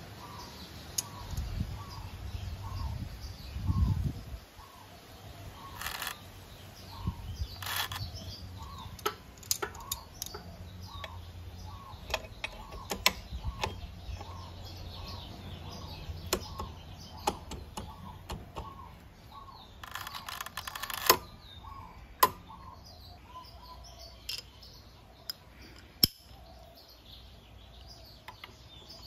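Metal clinks and knocks of a steel variator holder tool and socket being fitted onto a scooter's variator, with a few duller thumps. A bird chirps over and over at an even pace in the background.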